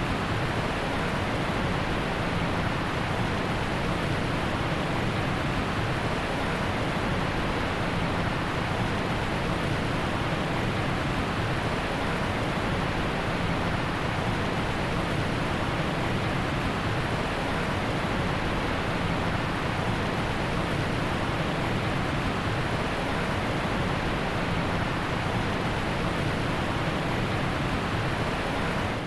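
Heavy rain falling in a forest, a steady dense hiss with no separate drops standing out. It fades out quickly at the very end.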